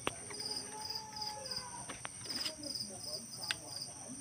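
Night crickets chirping: short pulsed chirps repeating about three times a second over a steady high trill, with a few sharp handling clicks.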